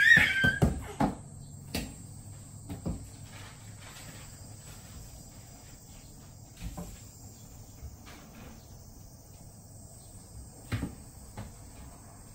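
A baby crawling on a wooden deck: a short high squeal at the start, then a quick run of thumps from her hands patting the boards, and a few single knocks later. A steady high insect drone runs underneath.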